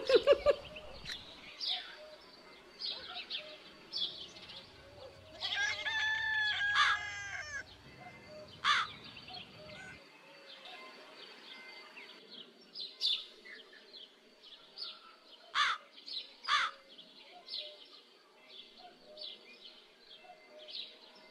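Small birds chirping in short, high calls throughout, with a rooster crowing once, about two seconds long, around six seconds in, and a few sharper single calls later.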